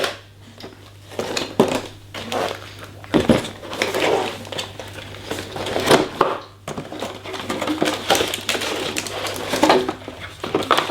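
Cardboard and plastic packaging rustling and crinkling, with light knocks and clinks as the parts of a smart lock are lifted out of the box and set down.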